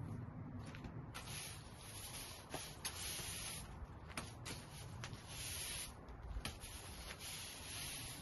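Push broom's bristles sweeping across brick pavers in repeated scratchy strokes, each about a second long, with a few light clicks between them.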